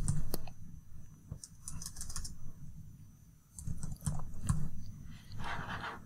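Typing on a computer keyboard: a few short bursts of keystrokes with pauses between them.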